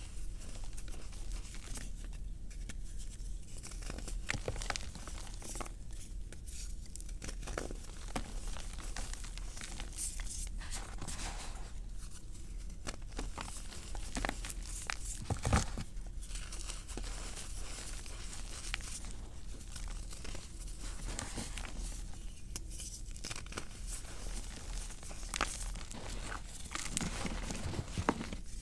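Hands crushing and crumbling baked cornstarch and gym chalk chunks into powder, giving an irregular crisp crunching and crackling, with one sharp, louder crack about halfway through.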